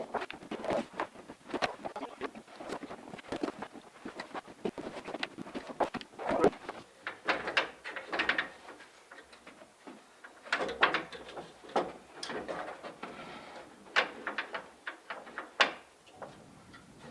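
Irregular knocks, taps and scrapes of wooden boards being handled and set in place, a dozen or more sharp strikes spread unevenly, with a few louder ones about six, eleven and fifteen seconds in.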